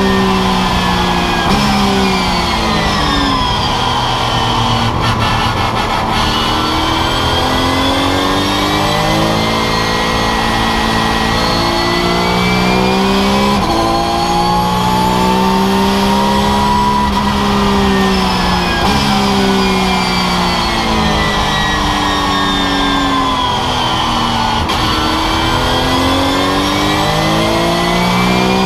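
Porsche 911 GT3 Cup's flat-six engine heard from inside the cockpit, revs climbing hard under acceleration and dropping abruptly at each upshift, then falling away under braking for corners before climbing again.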